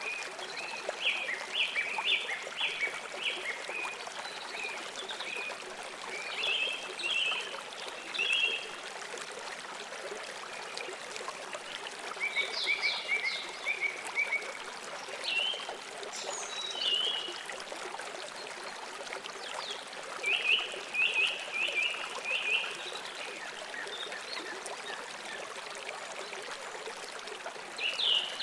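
River water flowing steadily, with bouts of quick, high chirping calls every few seconds.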